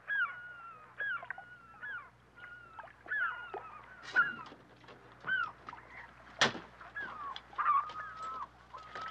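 A flock of birds calling over and over in short falling and rising cries, as harbour ambience. A sharp knock cuts through about six and a half seconds in, with a smaller one near four seconds.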